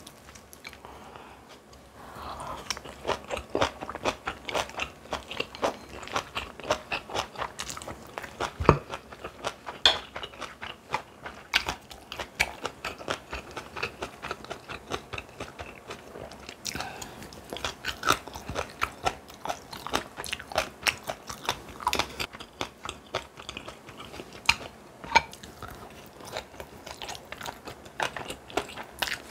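A person eating, chewing and crunching food in a dense run of small crunches and mouth clicks, with one sharp knock about nine seconds in.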